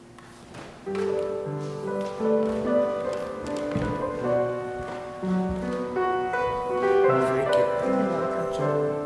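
Instrumental piano music starts about a second in and plays on as a steady run of notes, as the service ends.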